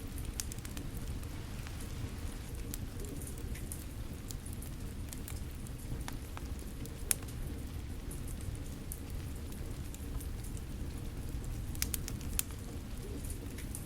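Steady rain with a wood fire crackling over it in scattered sharp pops, the clearest about seven seconds in and a few more close together around twelve seconds.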